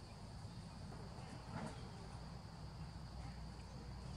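Faint outdoor ambience: insects droning steadily at a high pitch, with a brief faint voice about one and a half seconds in.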